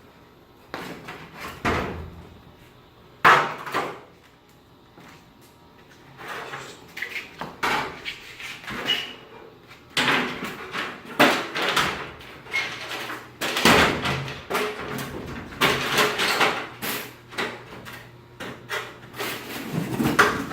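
Ladders being moved and set up: irregular knocks, clanks and scrapes, with one sharp knock about three seconds in and busier knocking and rattling through the second half.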